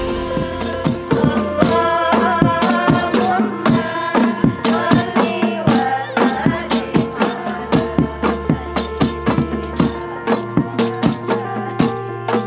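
Rebana frame drums struck in a quick, steady rhythm, their jingles rattling, with voices singing or chanting along.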